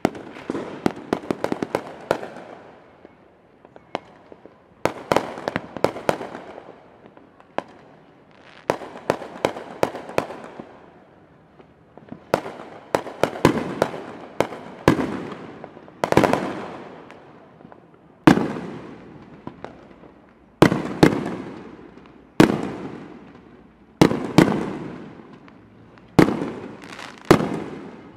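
Aerial firework shells bursting one after another, each sharp bang followed by a long fading echo, with bursts of rapid crackles in between.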